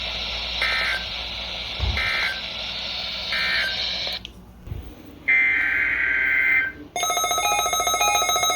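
Radio receiver hiss broken by three short screeching EAS digital data bursts, the end-of-message code after a NOAA Weather Radio test, followed after a brief drop by one longer burst of the same data sound. About 7 seconds in, a steady electronic alert tone with several pitches comes on.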